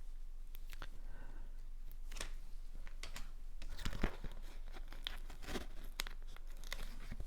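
Paper crafting sounds: rustling and peeling as the release paper comes off an adhesive foam circle and card pieces are handled, with a scatter of small taps.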